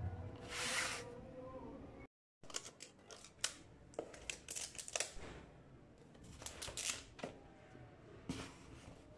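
Faint handling of a foil-covered cardboard food box: a short rustle, then scattered light clicks and crinkles as the rubber band is worked off and the box is moved on a wooden table.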